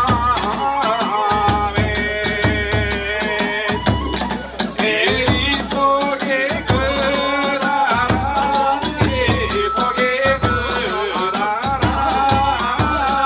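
Kagura hayashi ensemble playing: a bamboo flute melody over fast, steady hand-cymbal clashes and big-drum beats.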